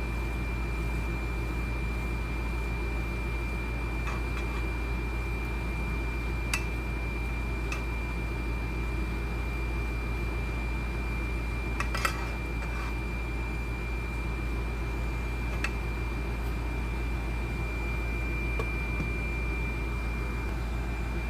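Steady machine hum with a thin, constant high whine, broken by a few light clicks, with a small cluster of them about halfway through.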